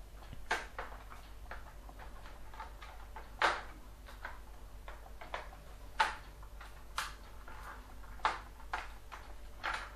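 Plastic case of an Acer 3680 laptop clicking irregularly, about a dozen sharp clicks, as fingers pry at its seams. The panels are not coming apart because a screw is still holding them together.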